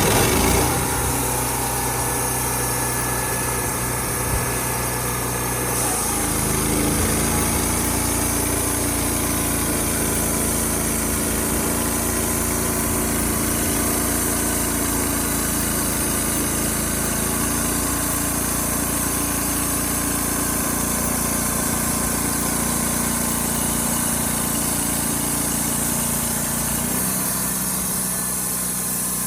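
A small engine running steadily; it steps up to a higher pitch about six seconds in and drops back again near the end.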